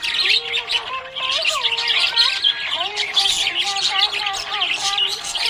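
Budgerigars chirping and warbling without pause, many quick high chirps overlapping with lower gliding, wavering notes.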